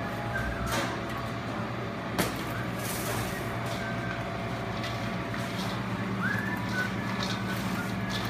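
Shredded cabbage slaw being tossed and squished with gloved hands in a large stainless steel bowl, over a steady machine hum. There is a sharp knock about two seconds in.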